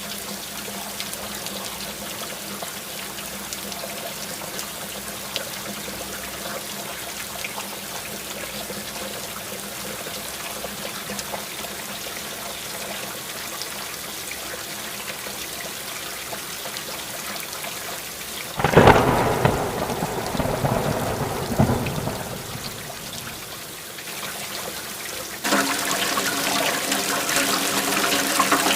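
Steady rainfall. About two-thirds of the way through, a loud thunderclap breaks and rumbles away over a few seconds. Near the end the rain gets suddenly louder.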